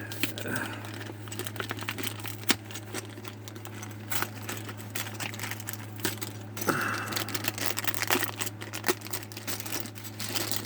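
Plastic bag crinkling and rustling as a small plastic water spigot tap is handled in and out of its packaging, with scattered light clicks of plastic parts. A steady low hum runs underneath.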